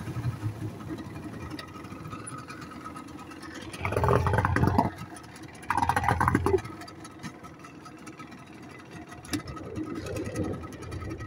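Yamaha 40 hp outboard motor running steadily under way, pushing the boat on a size-15 propeller, with a steady whine over the engine note. Two louder rushes of noise come about four and six seconds in.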